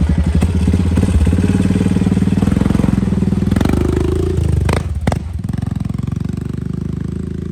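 Honda ATV's single-cylinder engine running, revved up briefly with the newly installed left-hand throttle about three and a half seconds in, then dropping back toward idle with a couple of sharp clunks.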